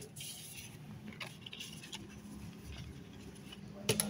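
Hands handling a new smartphone and its clear plastic packaging sheet: faint scattered crinkling and rustling, with a sharp click near the end.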